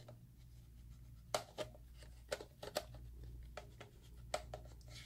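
Faint scattered clicks and scrapes of a lens being handled and twisted onto the mount of a Canon EOS Rebel SL2 camera body.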